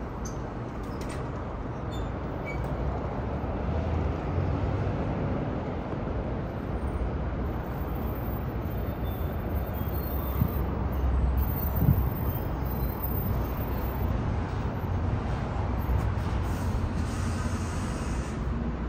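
Steady low rumble of city traffic on the street and the elevated expressway overhead, with a louder passing vehicle a little past halfway through.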